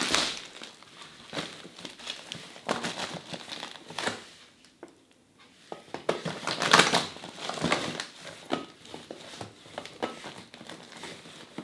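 Plastic packaging crinkling and rustling in irregular bursts as a hand rummages inside a shopping trolley bag, with a short lull about halfway through.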